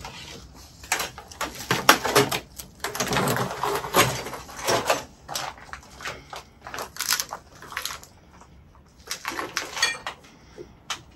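Irregular clattering and knocking of hard objects, with rustling in between; the knocks come thickly in the first half and thin out after about eight seconds.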